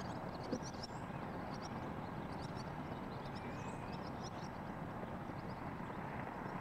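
Steady low hum of distant road traffic, with many short, high bird chirps scattered over it.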